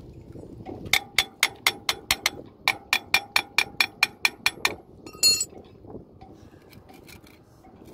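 Steel spanner clinking rapidly against the core cutter's steel barrel, about five ringing taps a second in two runs with a short break, followed by one louder metal knock about five seconds in.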